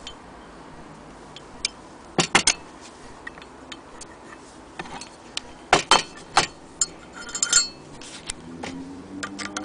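Sharp clinks and knocks of the cast-iron hand crank of a Willcox & Gibbs sewing machine being handled against its wooden case: a few clusters of hard knocks, the last of them about three-quarters of the way in ringing briefly like metal.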